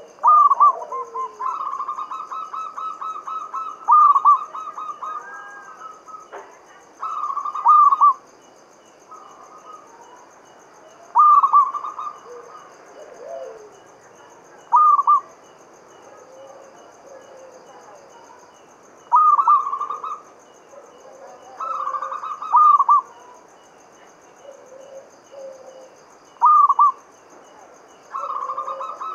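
Zebra dove cooing: about nine separate phrases of quick, rolling coos, a few seconds apart, with a longer trilled run in the first few seconds.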